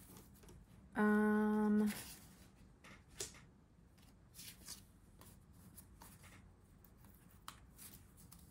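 Hands handling paper stickers and planner pages: soft rustles and light taps, with a steady low hum lasting about a second, about a second in.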